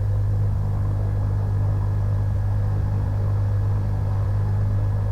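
Cessna 182M's six-cylinder Continental O-470 engine idling steadily while it warms up after start, heard from inside the cockpit as an even, low-pitched drone.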